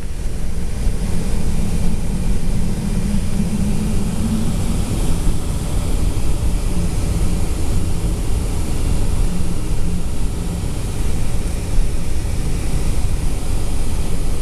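Cabin noise of a Boeing 757-200 from a seat beside the wing engine as the airliner taxis: a steady, loud rumble and rush of the jet engines and airframe. A low hum fades out about four seconds in.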